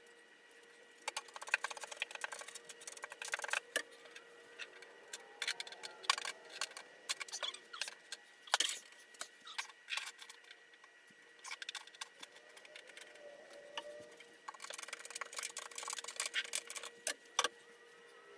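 Handling noises: irregular clicks, taps and crinkly rustles in clusters, over a faint steady hum.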